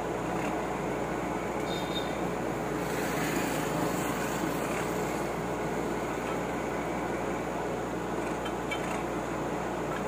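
Boom truck engine running steadily, an even mechanical noise that holds the same level throughout.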